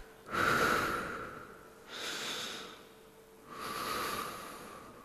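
A man breathing heavily three times, each breath a noisy hiss lasting about a second.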